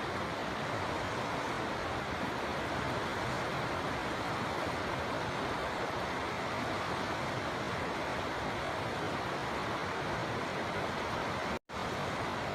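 River water flowing in a steady, even rush, broken once by a split-second gap of silence near the end.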